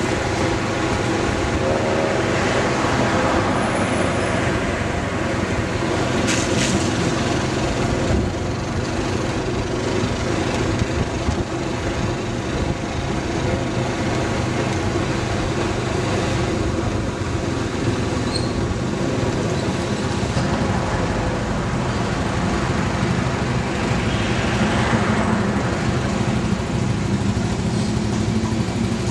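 A 110cc motorcycle riding along at a steady, low speed, its engine a steady drone under a rush of wind and road noise.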